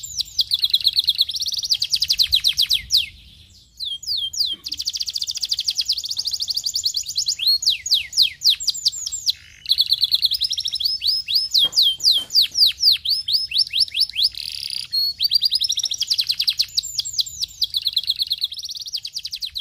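Domestic canary singing: long, fast trills of repeated high, downward-sweeping notes, with two short breaks about three and nine seconds in.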